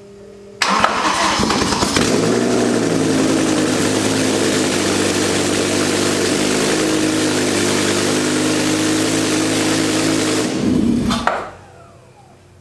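BMW M5's S85 V10 engine cold-starting on open exhaust manifolds with no exhaust system. It catches suddenly about half a second in, is rough for a moment, then settles into a steady idle that is consistently very loud. It is switched off a little after ten seconds and runs down to a stop.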